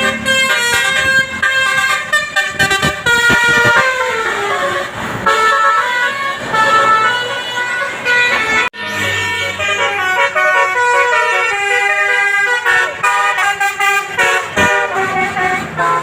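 Basuri horn, the multi-note musical air horn of Indonesian buses and trucks, playing a tune of quick stepped notes. It breaks off briefly about halfway through and starts again.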